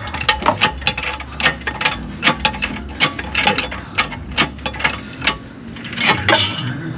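Irregular series of sharp metallic clicks and knocks from hand tools and metal parts being worked under a car, over a low steady hum that stops about five seconds in.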